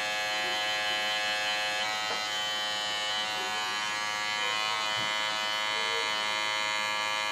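Electric hair clippers with the guard taken off running with a steady buzz while the bare blade edges hair around the ear.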